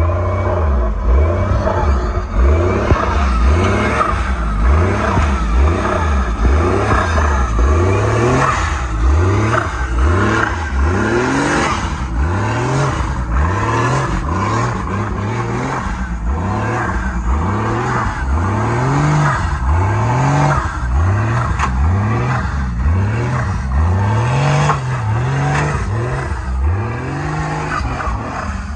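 Off-road competition truck's engine revved again and again, each rev rising in pitch and falling back, about one a second.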